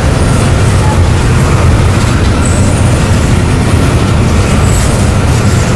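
Train made up of KCSM locomotives rolling past, a steady loud rumble with wheel-on-rail noise.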